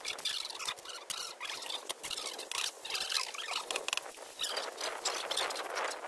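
Hand tools scraping and digging in dry dirt, with many small clicks and knocks of soil, stones and concrete blocks being moved into place.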